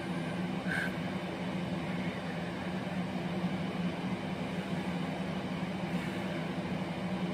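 Steady low mechanical hum of room background noise, unchanging throughout, with no speech.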